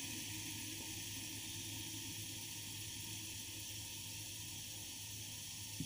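Steady faint hiss over a low hum, with no distinct sounds standing out.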